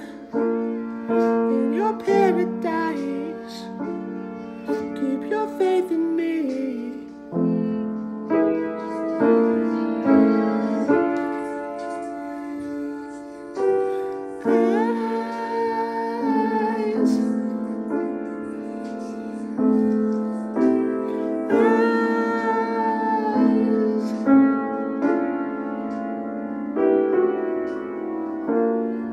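Piano chords played with a man singing along; the voice glides through long notes and drops out and comes back while the piano keeps going.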